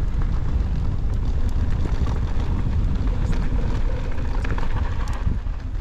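Wind rumbling on a GoPro's microphone while riding a mountain bike uphill on a dirt trail, with scattered small ticks and crunches from the tyres and bike.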